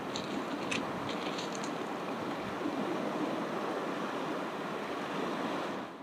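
Ocean waves washing on a beach, a steady rush of surf, with a few short crackling ticks in the first two seconds.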